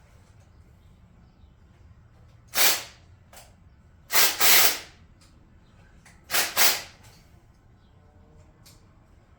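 Five short, loud hisses in three groups: one, then a pair, then another pair, each lasting well under a second.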